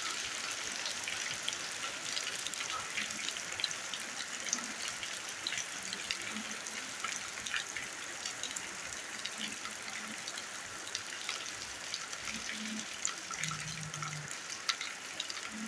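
Rainwater falling steadily onto the ground: an even hiss dotted with many small drop ticks.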